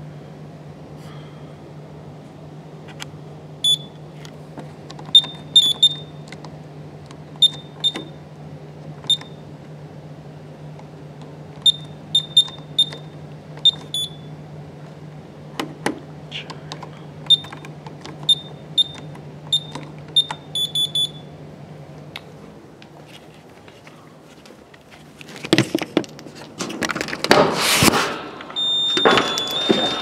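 Key-press beeps from a Honeywell/Ademco Vista alarm keypad: short, high single beeps in irregular clusters as code digits are entered, ending in a quick run of beeps. Near the end comes a louder stretch of scraping and handling noise, then a steady high tone starts.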